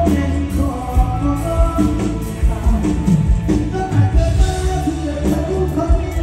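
Live band music played loud through a concert PA system: a steady drum beat over heavy bass, with a melody line on top.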